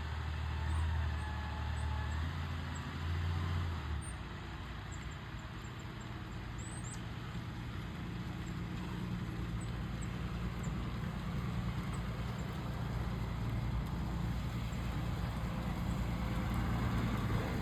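A vehicle engine running with a low, steady hum. It is heavier for the first four seconds, then settles into a quieter, even drone.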